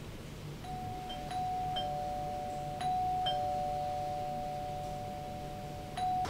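Soft, sustained bell-like notes on two close pitches, struck again every second or so and left ringing over one another: sparse background music, over a low steady hum.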